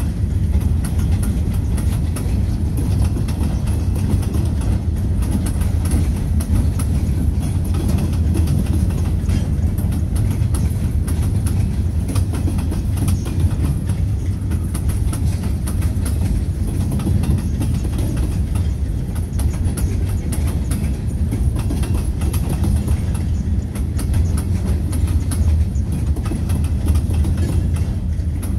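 Freight train of open-top gondola cars rolling past: a steady low rumble of steel wheels on the rails with scattered clicks as the wheels cross the rail joints.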